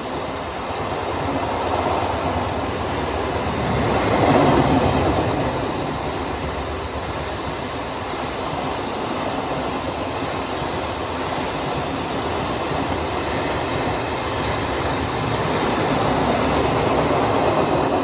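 Poorva Express passenger train rolling past, a steady rumble of wheels on rails that swells about four seconds in.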